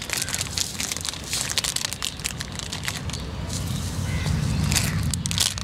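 Irregular rustling and crackling of leaves and plant stems being brushed and disturbed. A low rumble rises beneath it from about halfway through.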